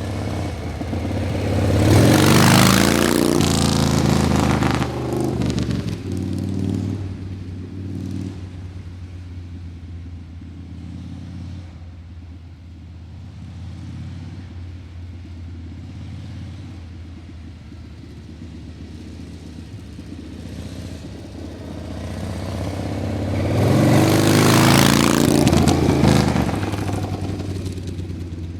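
Motor vehicle engine running with a steady low hum, rising to two louder swells a few seconds long, one early and one near the end.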